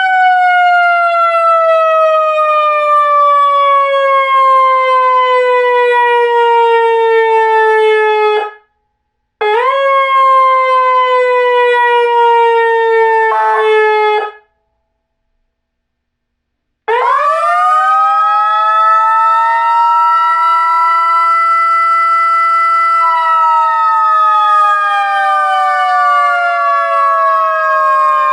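Whelen Alpha series electronic siren playing its simulated mechanical siren tone. The loud wail winds down slowly over about eight seconds and cuts off, gives a short restart that winds down again, then after a pause of a couple of seconds spins up quickly, holds a steady pitch for several seconds, and starts winding down slowly near the end.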